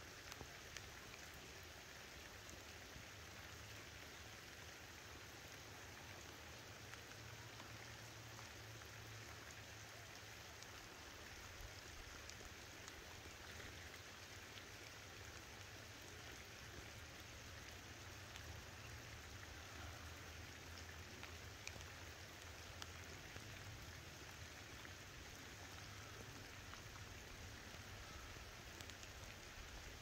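Light rain falling steadily: a faint, even patter with scattered soft drop ticks.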